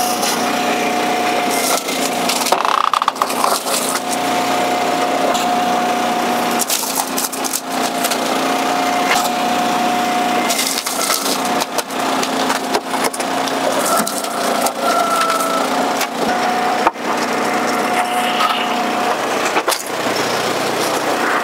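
Commercial log splitter with a 7-way box wedge splitting northern red oak. The machine runs with a steady drone, and a whine comes and goes several times as the ram works. Repeated sharp cracks and splintering snaps come from the oak splitting apart on the wedge.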